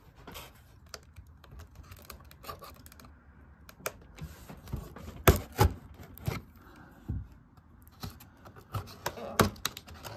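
Cardboard packaging being handled and worked at to free a taped-in item: irregular scrapes, taps and rustles, with a few sharper knocks about five and six seconds in and again near the end.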